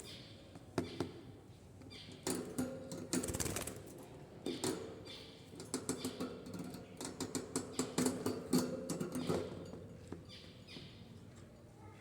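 Pet budgerigars making a busy run of quick irregular clicks and scratchy chatter.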